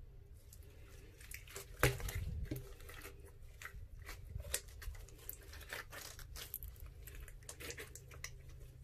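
Glossy slime stretched, folded and squeezed by hand: a run of sticky clicks and small wet pops, with one louder pop and thump about two seconds in.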